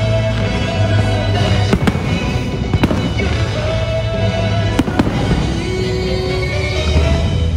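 Aerial fireworks bursting in several sharp bangs over the show's music.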